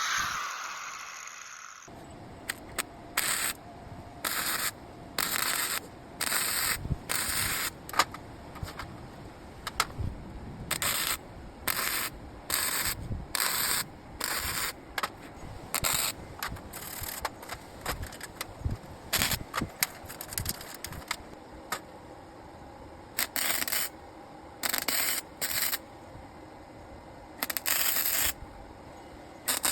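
Welding in many short bursts, each a crackling hiss lasting well under a second with sharp starts and stops, typical of tack welds on small scrap-metal pieces.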